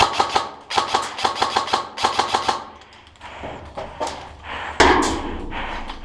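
Airsoft rifle firing several rapid bursts of shots in the first few seconds, then a louder rush of noise about five seconds in.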